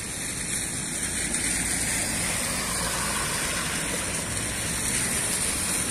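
Steady rain and traffic on a wet street: cars and motorcycles passing with their engines running, under an even wash of rain and wet-tyre noise.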